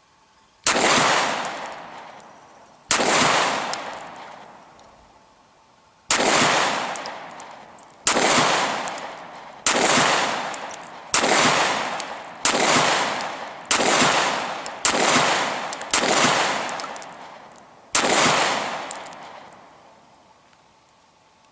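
Glock 17 9mm pistol being fired, eleven single shots at an uneven pace of one to three seconds apart, each with a long echoing tail.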